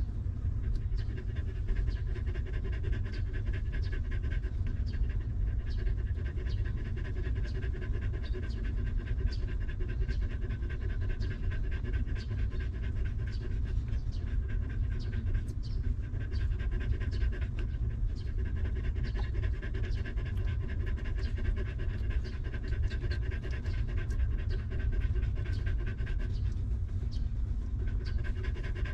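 A nursing mother dog panting in a quick, even rhythm over a steady low rumble.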